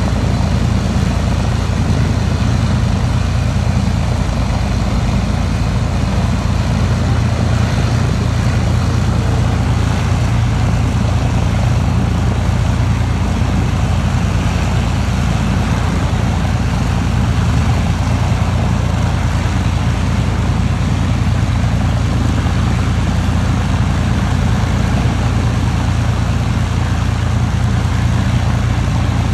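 A single Rolls-Royce Merlin V12 piston engine on an Avro Lancaster bomber running steadily on the ground, a deep, even rumble with no change in speed.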